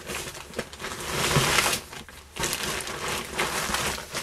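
A bag rustling and books being handled as the next book is pulled out, in several noisy stretches, loudest about a second and a half in.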